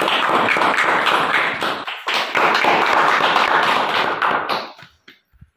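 Audience clapping in a steady round of applause, with a brief break about two seconds in, then dying away near the end.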